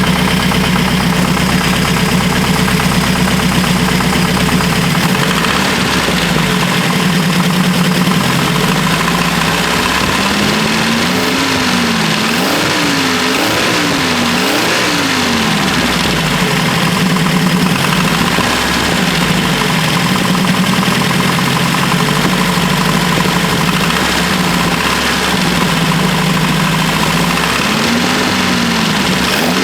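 Opel GT stroker engine idling and being blipped: four quick rises in revs in the middle, and another rev near the end. It makes a noise that the owner fears, without being sure, means a spun bearing.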